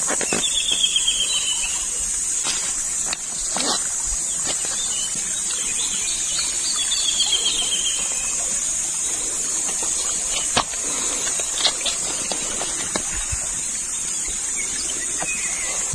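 Steady high-pitched drone of insects, with a bird's short rapid trill twice and a few scattered sharp clicks.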